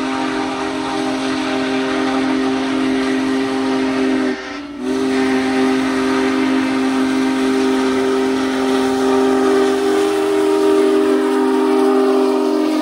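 Union Pacific Big Boy 4014 steam locomotive's whistle blowing a long chord of several notes over a steady hiss, cut off for half a second about four and a half seconds in and then held again.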